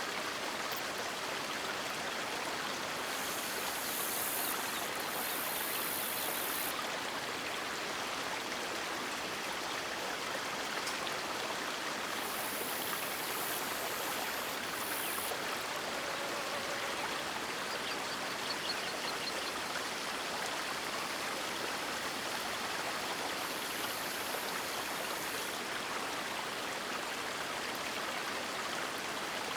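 River water rushing steadily, an even noise with no breaks. A faint high-pitched hiss rises above it three times for a few seconds.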